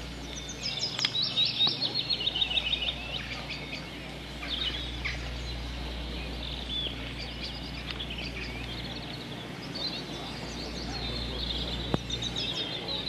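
Small songbirds chirping and singing in high, quick phrases, loudest in a run of rapid repeated notes from about half a second to three seconds in, with shorter phrases after that. A steady low rumble lies underneath.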